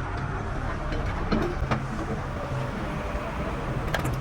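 Heavy machine's engine running steadily with a low hum, with a few sharp knocks about a second in and again near the end.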